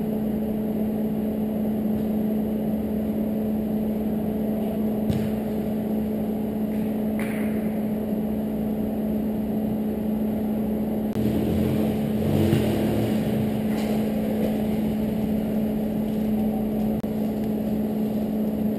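Steady machine hum with one constant low tone, with a few faint knocks about five and seven seconds in and a brief louder stretch of mixed noise after about eleven seconds.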